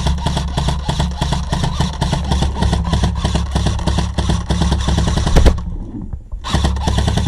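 Airsoft electric gun (AEG) firing on full auto: the gearbox motor's whir under a rapid rattle of shots, stopping about five and a half seconds in, then a second short burst near the end.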